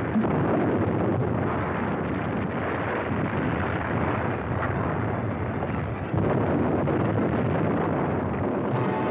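Battle sound effects on an old film soundtrack: a continuous dense roar of explosions and gunfire, jumping up in level just after the start and again about six seconds in.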